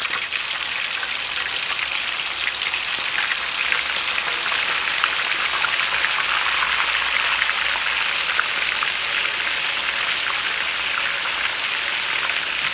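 Chicken pieces deep-frying in hot oil: a steady sizzle with many small crackles and pops. The chicken is uncoated, so the oil spatters.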